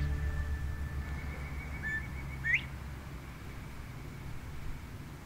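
A northern bobwhite whistles its two-note call about halfway through: a short, lower note, then a sharply rising one. Under it a faint, steady bird trill repeats, and the low tail of the fading background music dies away in the first couple of seconds.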